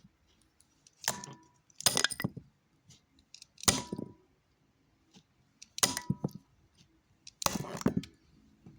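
Hard objects knocking and clattering in about five separate bursts, some of them quick clusters of clicks.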